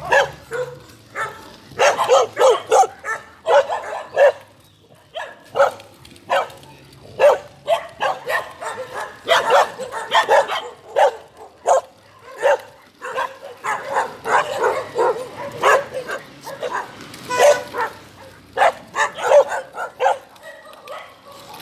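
A dog barking and yelping over and over, short sharp barks coming in quick runs of several a second with brief gaps between the runs.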